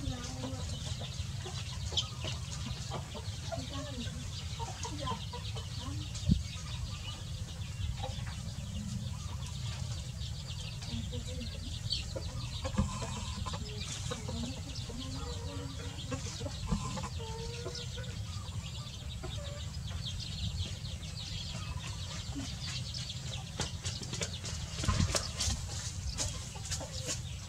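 Chickens clucking in short, scattered calls while a hen and her chicks forage, over steady low background noise, with a few brief clicks.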